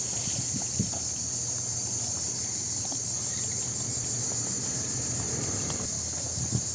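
Steady, high-pitched chorus of cicadas shrilling without a break, over a faint low steady hum, with a few soft knocks near the start and near the end.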